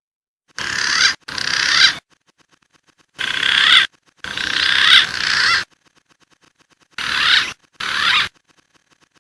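Green pigeon (punai) calling: short warbling whistled phrases, mostly in pairs, each swelling in loudness, with silent gaps between.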